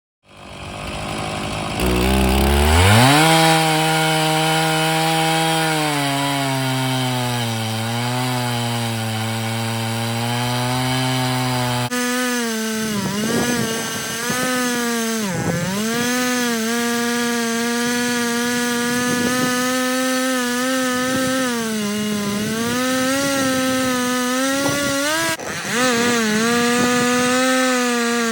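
A Stihl two-stroke chainsaw on an Alaska chainsaw mill ripping a green Douglas fir log lengthwise. The engine revs up over the first couple of seconds, then runs near full throttle under heavy load, its pitch sagging and recovering several times as it bogs in the cut.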